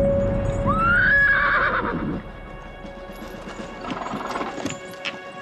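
A horse whinnies about a second in: a call that rises, holds, then wavers down. Hooves clop, and a steady music note is held underneath.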